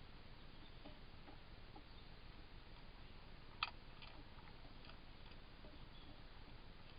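Near silence: faint steady hiss with a few soft ticks, and one sharp click about halfway through.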